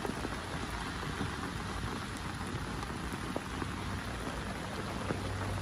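Steady rain falling on a wet street and pavement, heard from under an umbrella.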